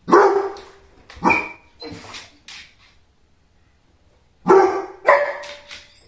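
Basset hound barking: a loud bark followed by a few shorter, quieter ones, then after a pause of about two seconds two more loud barks and a faint one.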